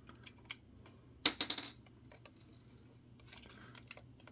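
Light clicks and a short rattle from a plastic desk-phone headset base station being handled and pried at, with the loudest quick run of clicks about a second and a half in.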